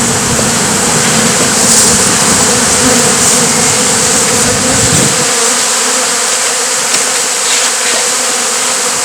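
Mass of honey bees buzzing loudly and steadily close to the microphone. A low rumble underneath drops away about halfway through.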